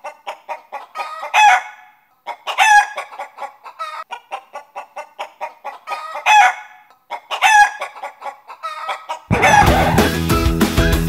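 A chicken clucking in quick repeated clucks, broken by several louder calls that bend in pitch. Music comes in near the end.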